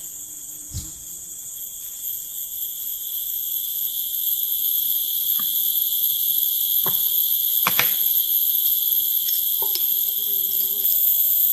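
Insects trilling in a steady, high-pitched chorus that grows louder over the first few seconds, with a few scattered knocks.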